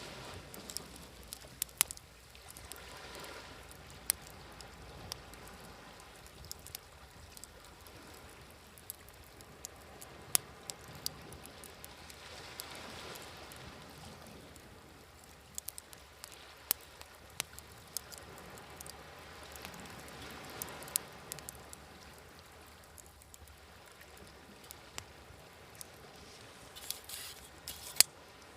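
Wood fire crackling with scattered sharp pops, a few of them loud, over small waves washing in and out in slow, uneven swells.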